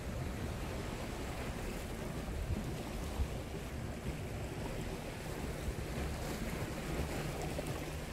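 Steady wind rumbling on the microphone over the wash of sea waves against shoreline rocks.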